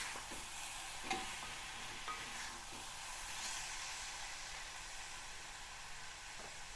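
Curried chicken sizzling in a little oil in a pot: a steady high hiss, with a couple of faint clicks about one and two seconds in.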